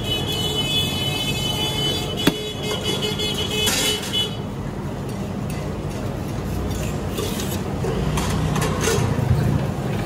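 Street traffic noise with a vehicle horn held for about the first four seconds, and a single sharp knock about two seconds in.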